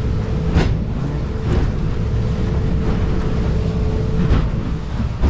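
A boat's engine running steadily underway, with a few sharp knocks over it, about a second apart early on and again near the end.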